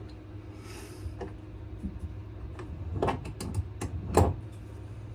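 Sharp clicks and knocks of a small swivel bench vise and the knife clamped in it being turned and repositioned. The clicks come in a quick cluster late on, the loudest knock about four seconds in, over a steady low hum.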